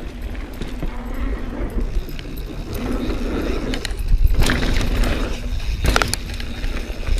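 Mountain bike descending a dirt singletrack: wind rumble on the microphone, tyres on dirt and the bike rattling, with sharp knocks over bumps twice in the second half.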